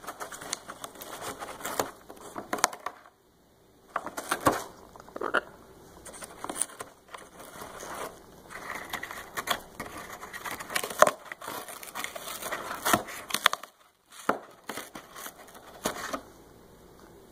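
Blue-and-gold macaw tearing and crunching the cardboard of a pizza box with its beak, in irregular bouts of ripping and snapping with a couple of brief pauses.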